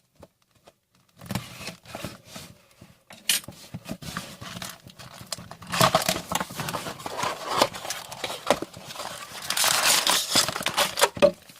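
Trading-card pack wrappers and box packaging crinkling and rustling in irregular bursts as they are handled, loudest about six seconds in and again near the end.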